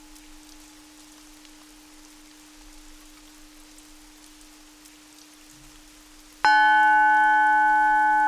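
A steady low drone tone over a faint rain-like patter. About six seconds in, a Tibetan singing bowl is struck and rings loudly with several overtones, fading slowly.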